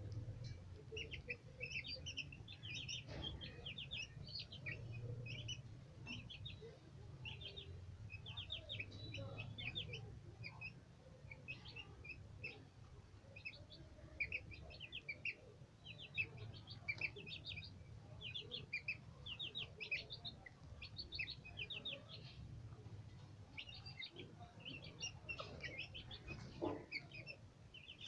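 Young chickens peeping over and over, in quick runs of short high notes.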